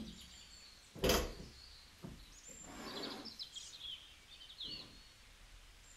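An office chair thumps once as a person sits down in it, about a second in. A few high, quick bird chirps follow in the middle.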